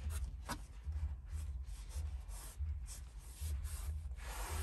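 Microfiber towel rubbing over a film-covered touchscreen in a series of short wiping strokes, with a longer, louder swipe near the end, pressing out the last of the soapy water under the newly applied screen protector. A low, pulsing rumble runs underneath.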